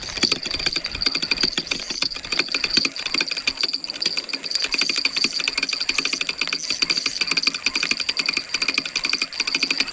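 Spinning fishing reel being cranked steadily, its gears ticking rapidly as line is wound in. A steady high whine runs under the ticking.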